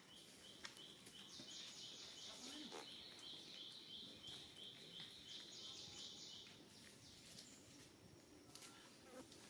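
A small animal's faint, rapid high-pitched trill, about five evenly spaced pulses a second, that cuts off about six and a half seconds in.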